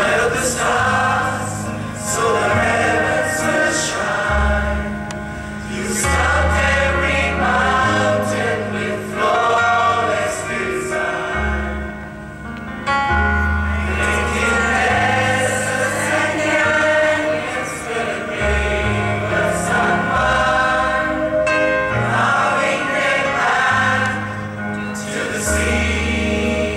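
Mixed church choir of men and women singing a gospel worship song together, over instrumental accompaniment with a low bass line holding long notes.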